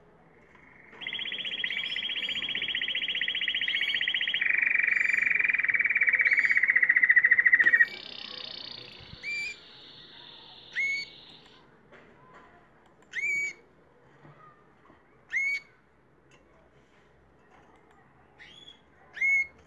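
Canary singing: a long, rapid trill that grows louder, drops to a lower pitch about four seconds in and breaks off abruptly near eight seconds. A softer, higher trill follows, then a few short upward-sweeping chirps spaced a couple of seconds apart.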